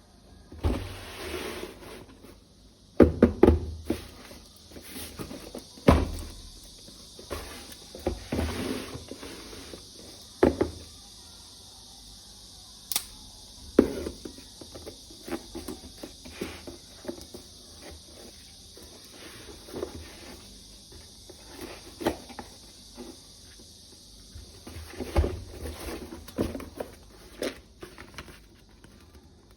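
Toy rifle and its packaging being handled: irregular knocks and thunks of hard plastic with rustling in between.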